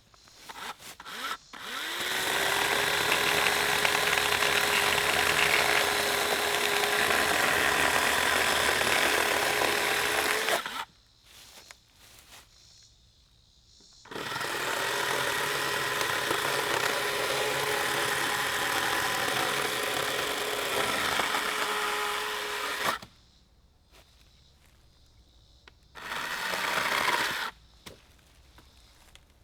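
Battery-powered electric chainsaw cutting wood in three runs: two long ones of about nine seconds each and a short one near the end. Each run spins up quickly to a steady whine.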